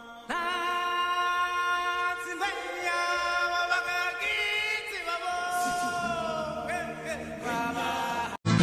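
Sung chant-like vocal music: a voice holding long notes, sliding slowly from one to the next, and cutting off suddenly near the end.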